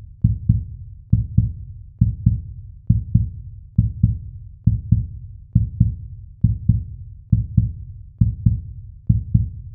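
Heartbeat sound effect: low double thumps (lub-dub) repeating evenly, a little faster than one beat a second.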